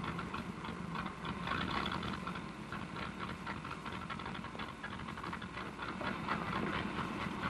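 Old fire engine's motor running with a rapid, even chattering beat, misfiring: the engine "sure is missing".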